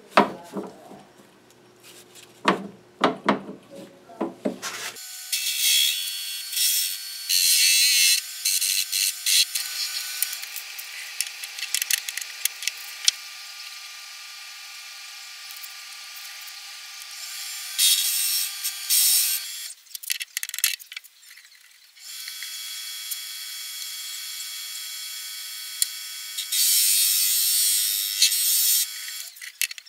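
A few clicks of handling, then the Atlas 618 bench lathe starts about five seconds in and runs steadily on its motor and belt drive. A harsh hiss comes in three spells as the tool cuts, turning down a chuck back plate. The lathe stops briefly about two-thirds of the way through, then runs again.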